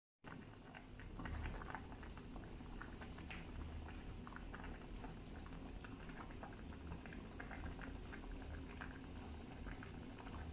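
Pot of chicken and cabbage soup (tinola) simmering: faint steady bubbling with many small pops, over a low steady hum.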